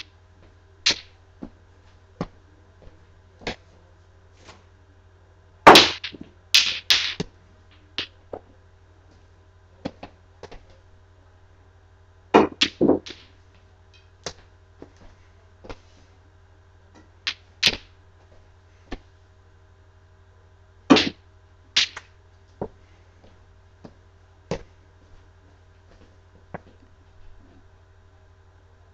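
Pool balls clacking on a miniature tabletop pool table: the cue tip striking the cue ball and the small balls knocking into one another. Scattered sharp clicks, in loudest clusters about six, twelve and twenty-one seconds in, over a steady low hum.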